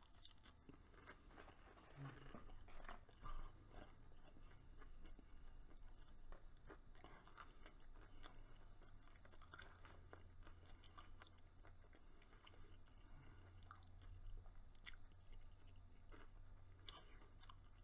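Faint chewing of a breaded fried chicken tender, with scattered small crunches and mouth clicks.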